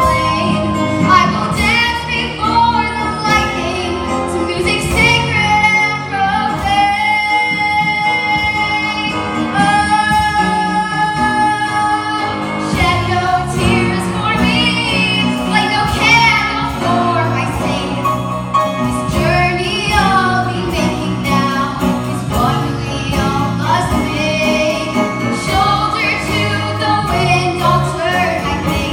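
A woman singing solo over instrumental accompaniment, with long held notes and vibrato, two of them held about a quarter and a third of the way in.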